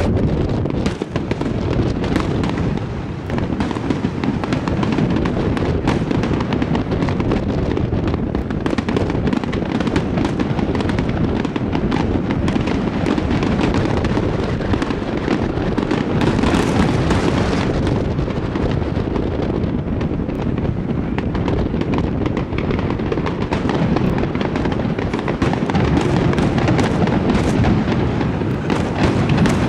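Aerial fireworks display: shells launching and bursting one after another in dense, unbroken succession, many bangs overlapping.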